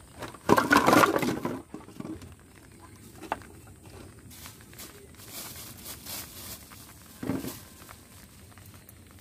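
Empty plastic bottles tumbling out of a plastic basket and clattering onto a bamboo deck: a loud jumble of about a second near the start, followed by a few lighter knocks and handling noises.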